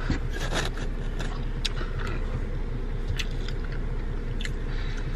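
Close-up biting and chewing of a burger, heard as scattered short wet clicks and smacks, over a steady low hum in the car cabin.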